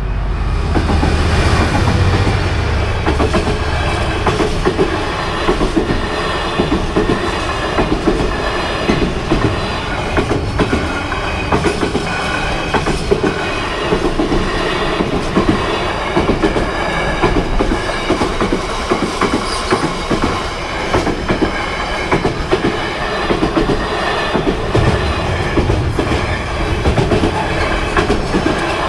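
Container freight train passing at close range. There is a low rumble in the first few seconds as the front of the train goes by, then the wagons' wheels click steadily over the rail joints.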